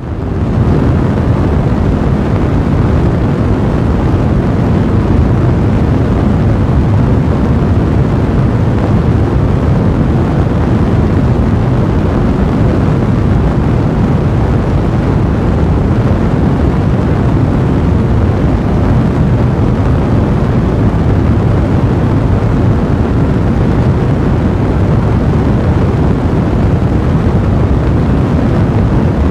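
A steady, deep rumbling roar that fades in over the first second and then holds level throughout.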